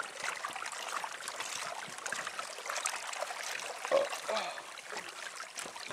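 Lake water trickling and splashing against a small boat's hull as the boat moves slowly along, a steady watery hiss with small irregular splashes.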